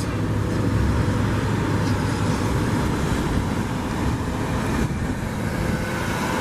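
Steady road traffic noise: an even rumble and hiss of passing vehicles with no single distinct event.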